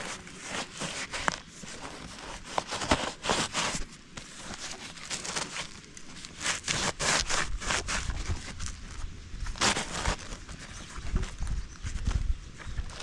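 Rustling and scraping of a canvas lay-flat hose being worked by hand over the end of a plastic pipe, in irregular short bursts with soft knocks.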